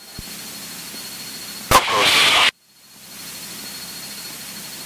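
Steady hiss of the cockpit headset and radio audio with a faint thin high tone. About two seconds in a sharp click starts a brief louder burst that cuts off abruptly, like a short radio transmission, and the hiss then fades back in.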